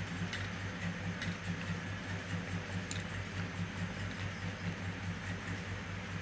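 Quiet eating sounds: a few faint clicks from chewing and from a hand mixing rice and curry, over a steady low hum.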